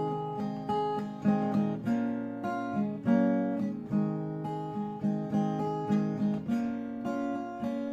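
Acoustic guitar strummed and picked in a steady rhythm, about two strokes a second, moving through chord changes.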